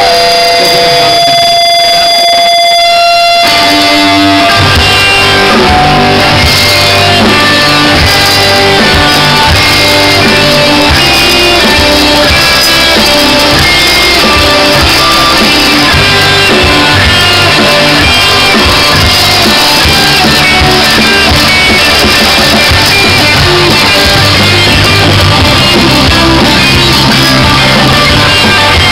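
Rock band playing live: a few held guitar notes ring out, then the full band comes in about three and a half seconds in and plays on loudly with guitars and a steady beat.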